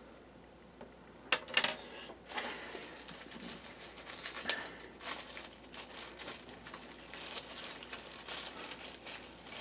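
Crinkling and light clicks of things being handled during a laptop repair, starting after about a second of near quiet with a sharper crinkle, then many small scattered clicks and rustles.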